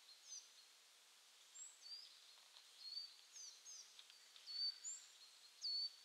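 Small birds chirping faintly: short high calls, each a quick downward flick settling into a brief held note, two or three a second, over a steady faint hiss.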